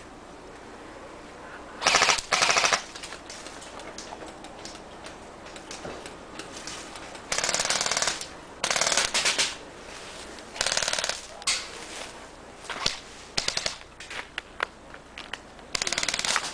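Airsoft BB guns firing in rapid full-auto bursts, about nine bursts of half a second to a second each, the loudest two about two seconds in.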